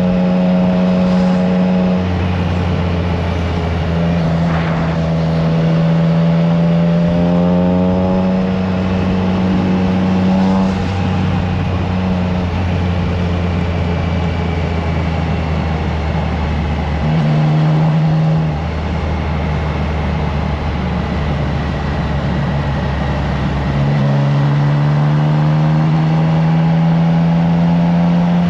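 Triumph Trident 660's inline three-cylinder engine through a FireTong aftermarket exhaust, ridden on the road: engine pitch climbs under acceleration a few seconds in and again near the end, with short changes in between as the throttle is eased and gears change.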